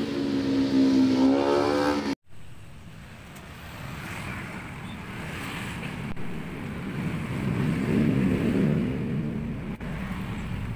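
A passing motor vehicle's engine, its pitch rising, cuts off suddenly about two seconds in; after that comes traffic noise, with another vehicle swelling past about eight seconds in.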